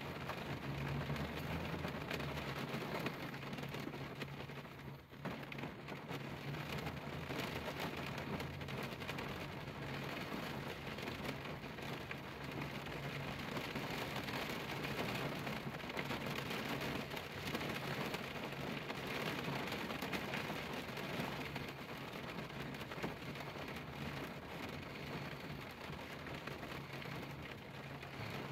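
Rain falling steadily on a car windshield, a continuous patter of drops on the glass, dipping briefly about five seconds in.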